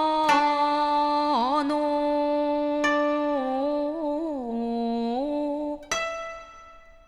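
A woman singing a slow koto song, holding each syllable as a long note and sliding between pitches. About six seconds in, a koto string is plucked and rings away.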